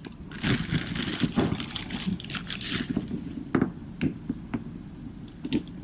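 Metal suspension parts being handled as a bolt is fitted through a control arm: scraping and rattling for a couple of seconds, then a few separate sharp metallic clicks.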